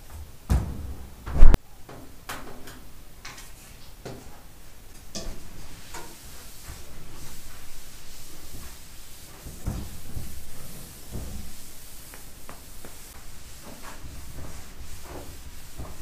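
A refrigerator door is shut with a loud thud about a second and a half in, just after a smaller knock. Then a cloth rubs and wipes across the fridge's stainless-steel door.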